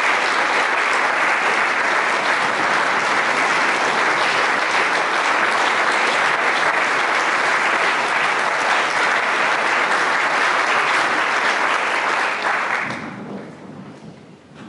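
Audience applauding steadily, then dying away about thirteen seconds in.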